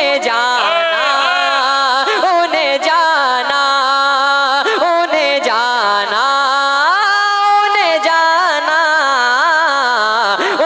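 A single male voice singing a naat into a microphone: a long, ornamented vocal line, the pitch gliding and wavering up and down with few breaks.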